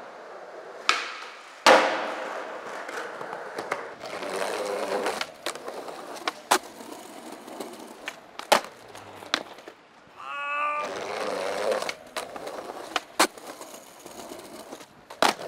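Skateboarding on concrete: wheels rolling, with sharp cracks of the tail popping and the board landing, the loudest about two seconds in. Metal trucks grind along a concrete ledge, with a brief squeal about ten seconds in.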